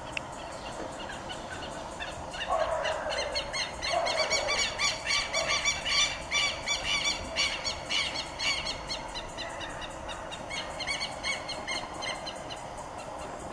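Southern lapwings (quero-quero) calling: a long series of sharp, strident repeated notes, starting about two and a half seconds in and fading away near the end.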